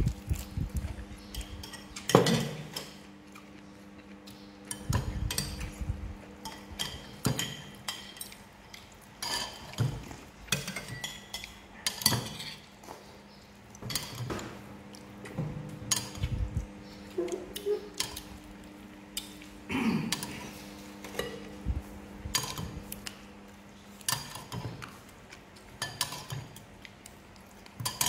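Metal spoons clinking and scraping against ceramic soup bowls and rice plates during a meal, in irregular sharp clinks with a few duller knocks. A faint steady hum runs underneath.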